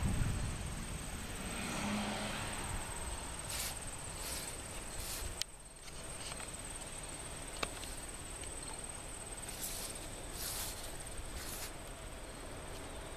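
Insects trilling steadily at a high pitch, with several short, louder high buzzes. Under them is a low rumble, strongest at the start, and a couple of sharp clicks.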